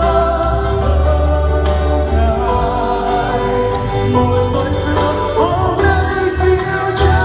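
Two men and a woman singing a Christian worship song in Vietnamese together into microphones, over instrumental accompaniment.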